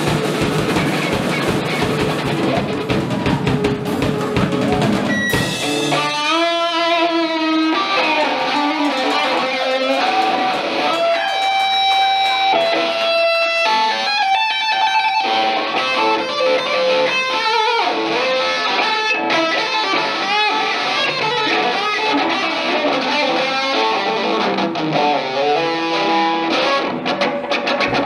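Live rock band with electric guitars and drum kit playing an upbeat funk-rock number. After about six seconds the low end drops back and a guitar plays lead lines with bent notes over lighter accompaniment.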